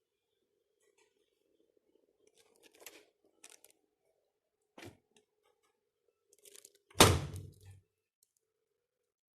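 Handling noises: scattered short rustles and clicks, then one loud heavy thump about seven seconds in, over a faint steady hum.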